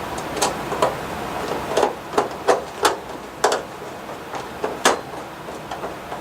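A screwdriver driving the screw that holds the junction box cover on an electric baseboard heater: a string of irregular sharp metal clicks and scrapes, the loudest about five seconds in, over a steady hiss.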